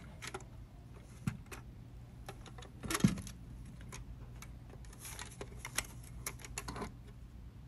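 Plastic housing and metal parts of a home internet gateway clicking, rattling and knocking together as the circuit board is worked free of the case, with one sharper knock about three seconds in.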